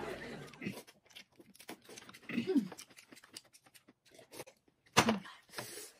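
Close-up eating sounds: noodles and vegetables being slurped and chewed, with small wet mouth clicks. A short hummed voice sound comes about two and a half seconds in, and a louder sharp slurp about five seconds in.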